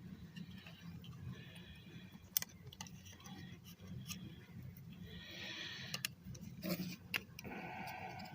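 Scattered sharp clicks and taps of small plastic model-kit parts being handled on a tabletop, with a brief rustle about five seconds in and a short pitched sound near the end, over a low steady hum.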